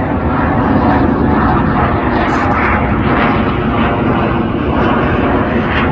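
Blue Angels F/A-18 Super Hornet jet passing overhead: a loud, steady roar from its twin turbofan engines.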